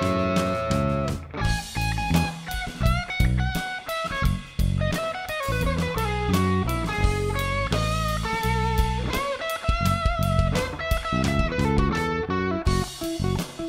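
Rock band playing an instrumental passage: an electric guitar plays a single-note melodic line with held and bent notes over bass guitar and a drum kit.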